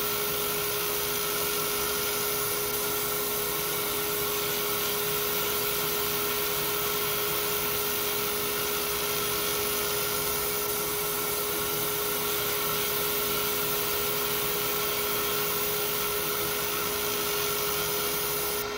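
Laser engraving machine running steadily while it engraves a 3D relief into a metal plate: an even, airy whir with a constant mid-pitched hum.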